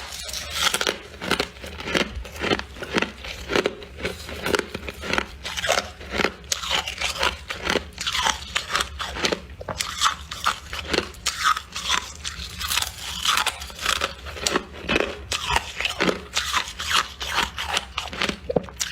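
Freezer frost being chewed close to the microphone: a steady run of crisp crunching bites, about two to three a second, over a faint low hum.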